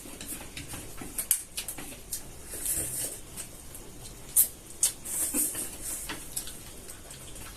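Noodles being eaten with chopsticks: sharp clicks and taps of chopsticks against plates, with short bursts of slurping and chewing.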